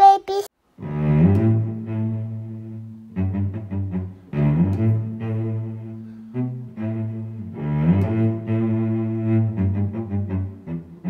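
Background music: low bowed strings, cello-like, playing long held notes in phrases that start again every few seconds.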